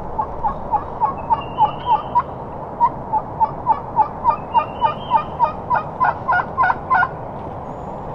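Wild turkey yelping: an even run of about two dozen short yelps, three to four a second, with a brief break early on. The yelps grow louder and harsher before stopping about a second before the end.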